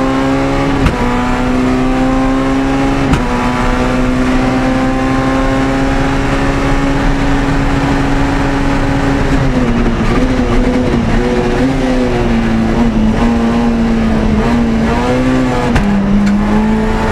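Citroen Saxo A6 rally car's 1.6-litre four-cylinder engine at full throttle, heard from inside the cabin, with two quick upshifts in the first few seconds. Over the second half the revs dip and waver as the car comes off the throttle toward a corner.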